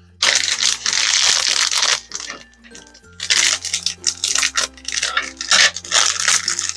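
Blind-box packaging being torn open and crinkled in three long rustling stretches, over background music with a steady bass line.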